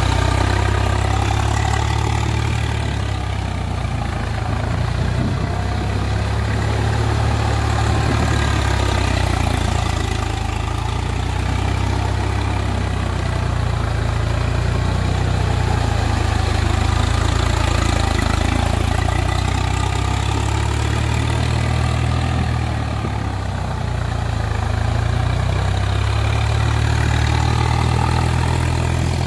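Swaraj 735 FE tractor's three-cylinder diesel engine running steadily under load, its cage wheels churning through the mud of a flooded paddy field during puddling.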